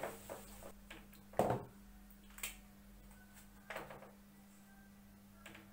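Whiteboard duster rubbed across the board in about six short scrubbing strokes, each a brief knock-like rub, the loudest about one and a half seconds in, over a steady low hum.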